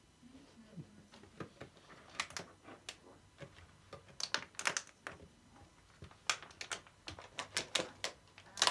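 Kitten batting and biting a plastic bottle: irregular crackling clicks and taps of thin plastic in quick runs, the loudest near the end.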